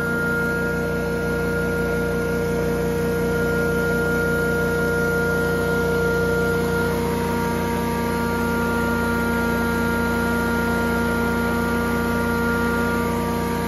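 Honda GX690 V-twin engine running steadily at working speed on a Prochem Legend carpet-cleaning truckmount, with the machine's blower and pump running with it.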